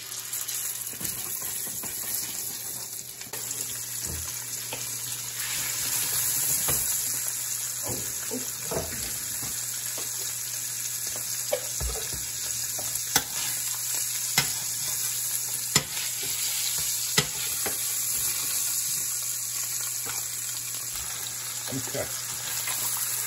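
Salmon fillets sizzling in hot olive oil and butter in a stainless steel pan. The steady frying hiss starts suddenly as the first fillet goes in. Several sharp taps of metal against the pan come around the middle.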